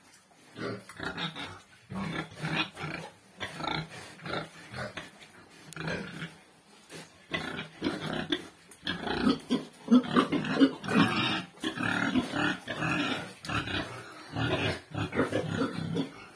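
Pigs grunting in a rapid, irregular series during mating, as a boar mounts a sow; the grunts grow louder and more frequent in the second half.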